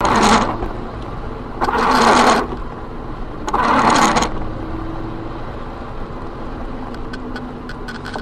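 Car driving on a wet road, heard inside the cabin: a steady low rumble of engine and tyres, with three short swishing noises about two seconds apart in the first half.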